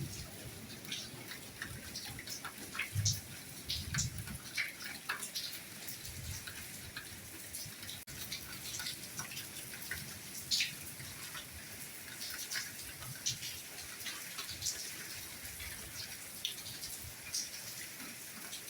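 Soft rain falling steadily, a hiss with many separate drops splashing and dripping through it. A couple of low thuds come about three and four seconds in, and there is a split-second dropout around the middle.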